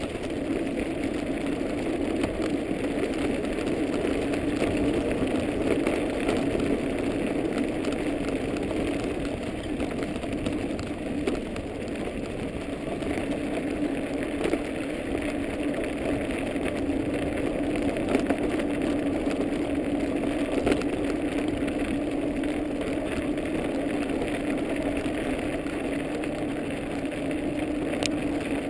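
A dog-pulled kick scooter rolling steadily over a snow-covered path: a continuous low hum and hiss from its wheels and frame.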